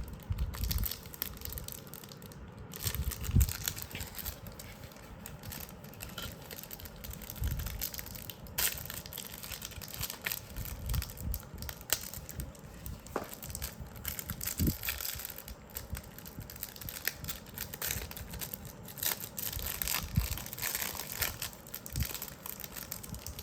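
Plastic packaging being crinkled and torn open by hand as trading cards are unwrapped: irregular crackling and rustling throughout.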